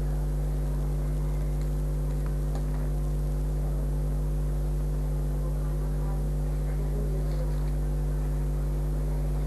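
Steady electrical mains hum: a low buzz with several steady overtones and a light hiss, unchanging throughout. A few faint small ticks, such as wire being handled, sit under it.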